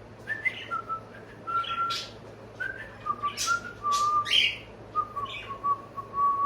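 Pet bird whistling and chirping: a string of short level whistled notes, some held longer, broken by sharp chirps.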